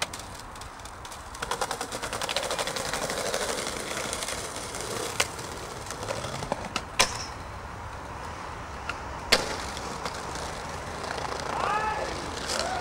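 Skateboard wheels rolling over brick pavers with a steady rumble, broken by three sharp cracks a couple of seconds apart: the board's tail popping and the deck slapping down on landings.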